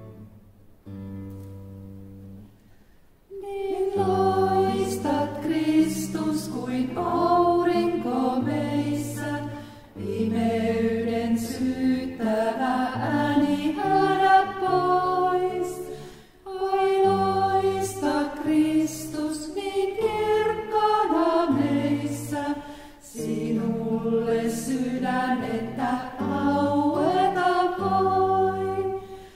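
A small group of women singing a hymn together to acoustic guitar accompaniment. The guitar plays alone and softly for about the first three seconds, then the voices come in, in phrases of about six seconds with short breaths between them.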